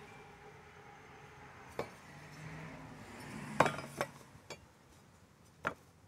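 A handful of sharp metallic clinks and knocks, about five, the loudest about halfway through: metal hand tools (a speed square and handsaw) being handled and set down on wooden boards.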